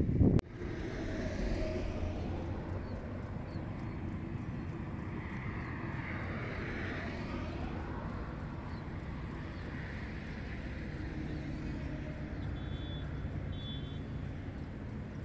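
Steady low hum of a motor vehicle's engine, with the sound swelling and fading again around the middle; a louder noise cuts off abruptly just after the start, and a few short high chirps come near the end.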